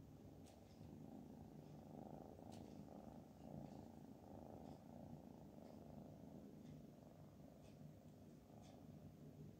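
A cat purring, faint and steady, with a few soft ticks.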